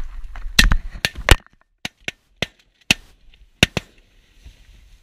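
Shotgun blasts in quick succession, about three within half a second to a second, aimed at a flock of passing geese. They are followed by several lighter sharp knocks spread over the next two seconds.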